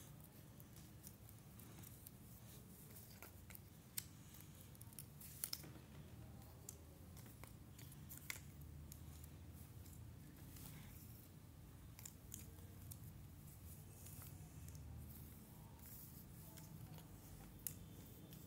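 Faint, scattered clicks and taps of cardboard jigsaw pieces being picked up and pressed into place on a hard floor, a handful of them sharper than the rest, over a low steady hum.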